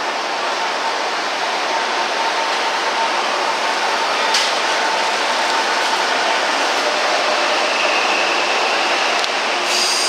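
Electric commuter train pulling out and accelerating along the platform: a steady rumble of wheels on rail with a steady electrical whine, which moves higher in pitch later on. A short high wheel squeal comes at the very end as the last car passes.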